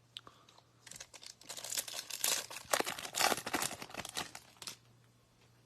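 A foil trading-card pack wrapper being torn open and crinkled, a dense run of crackling and rustling for about four seconds.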